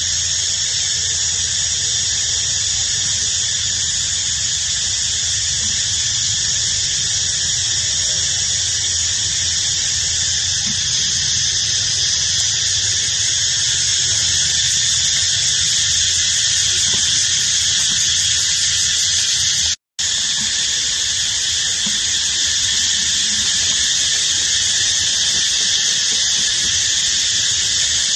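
Steady, high-pitched buzzing of cicadas in forest, with a low rumble underneath; the sound drops out for a split second about twenty seconds in.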